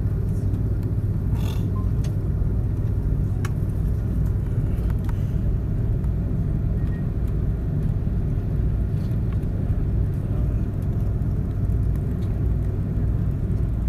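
Airliner cabin noise while taxiing: a steady low rumble of the jet engines at idle and the wheels rolling over the taxiway, heard from inside the cabin, with a few faint clicks.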